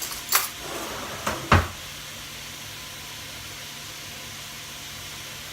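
Three sharp kitchen knocks and clatters in the first second and a half, the last the loudest, over the steady hiss of vegetables sizzling in oil in a pot.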